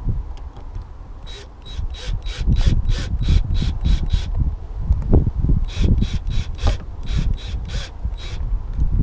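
Self-tapping screws being turned by hand, making rhythmic rasping strokes about four a second in two runs with a short pause between. A low rumble of wind on the microphone runs underneath.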